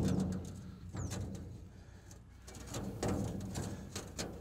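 Knocks and clunks of equipment being handled and set up on a small box trailer, a few separate strikes with the loudest near the start. Birds call in the background with short high falling chirps.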